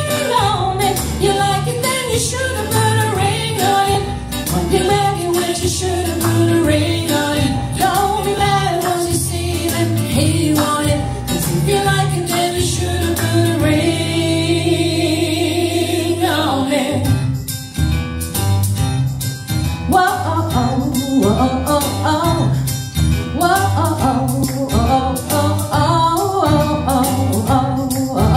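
A woman singing live at a microphone with piano accompaniment. About halfway through she holds one long note, which breaks off before the singing picks up again.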